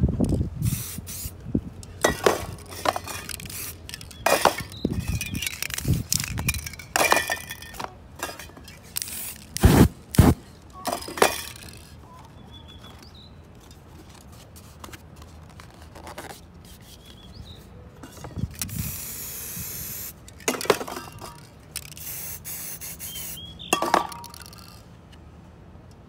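Spray-paint art being worked by hand: a card mask and tools handled against the painting surface with a string of clicks, clinks and scrapes, then a hiss of aerosol spray paint lasting about two seconds, about three quarters of the way through, followed by more scraping and handling.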